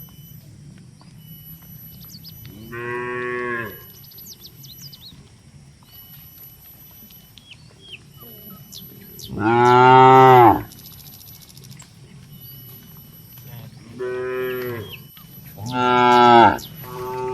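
Cattle mooing: five separate moos, the loudest about ten seconds in and the last few coming close together near the end.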